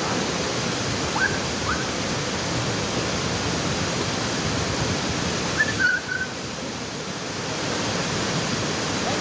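Waterfall rushing steadily, with a few short high chirps over it and a brief drop in level about six seconds in.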